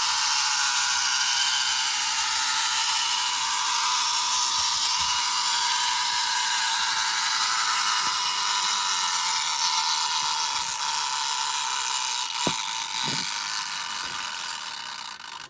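Schylling X-306 tin wind-up robot's clockwork mechanism running: a noisy, steady whirring that slowly weakens as the spring runs down, with a couple of clicks late on, then stops near the end.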